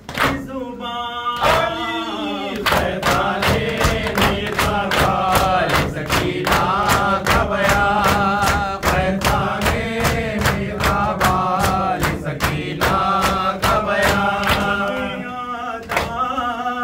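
Men's voices chanting a noha, a Shia mourning lament, in unison, with the even slapping of hands beating on chests (matam) keeping time at about two to three strokes a second.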